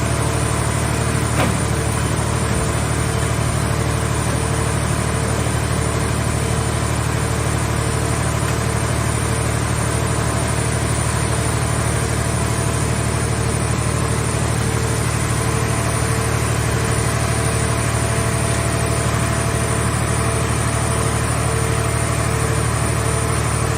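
Power unit of a movable hydraulic scrap-car baler running steadily, with a strong low hum that does not change, and a light click about a second and a half in.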